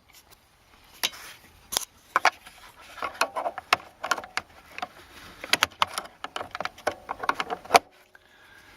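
A flat screwdriver clicking, tapping and scraping against the plastic climate-control flap linkage and vacuum actuator while working at a link to pop it off. The clicks and knocks come irregularly, several a second at times, with the sharpest one near the end.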